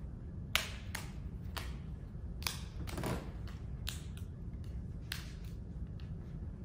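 A large communion wafer is snapped into small pieces by hand over a metal paten: about a dozen crisp snaps and clicks at uneven intervals, over a steady low room hum.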